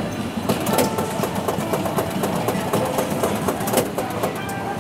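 Latte art cappuccino vending machine working through its brewing cycle. The inner mechanism runs with rapid, irregular clicking and clattering, starting about half a second in and easing off near the end.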